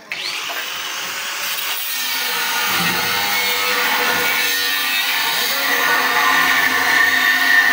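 A power tool running steadily during steel-frame construction work. It starts abruptly, grows gradually louder, and a faint high whine comes up towards the end.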